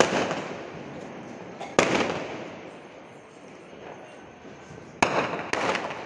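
Fireworks going off: four sharp bangs, the first right at the start, one about two seconds in, and two close together near the end. Each bang is followed by a fading crackle.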